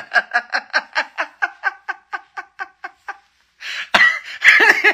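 A man laughing hard, a long run of rhythmic "ha-ha-ha" pulses, about six a second, that fade out about three seconds in. Talking starts again near the end.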